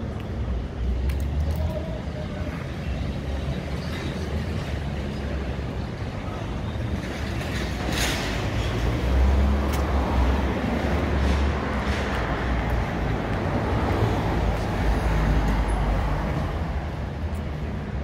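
City street traffic: vehicles passing in a continuous wash of road noise, with louder passes around the middle and again near the end.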